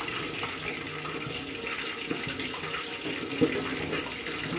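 Wooden cooking stick scraping and mashing stiff maize-meal ugali against the sides of an aluminium pot as it finishes cooking, with small knocks of the stick on the pot and a sharper knock about three and a half seconds in. A steady rushing hiss runs underneath.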